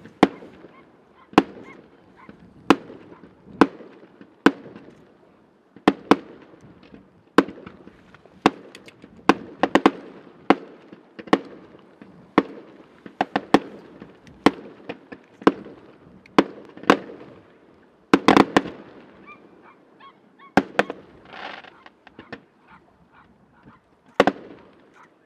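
Fireworks display: shells going off in an irregular series of sharp bangs, about one or two a second, with a quick cluster of bangs about eighteen seconds in.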